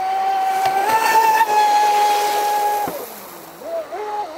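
Radio-controlled speedboat's brushless electric motor whining at full throttle, a steady high pitch that steps up slightly about a second in and cuts off suddenly just before three seconds in.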